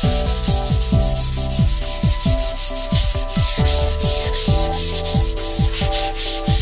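Hand sanding of a laminate chest-of-drawers top with a sanding disc, rapid scratchy back-and-forth strokes scuffing the finish to give a key for paint. Background music with a beat plays under it.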